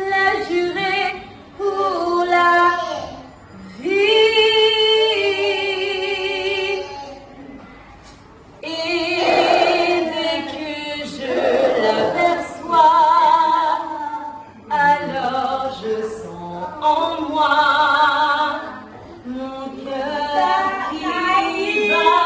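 A woman singing unaccompanied, in phrases with brief pauses between them, holding some notes with vibrato.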